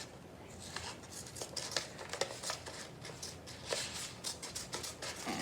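Scissors snipping through a paper cut-out, a run of small irregular snips as the shark's fins are cut out.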